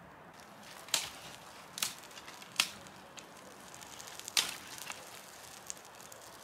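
Freshly lit campfire kindling catching and flaring up: a soft hiss with crackling and a few sharp pops.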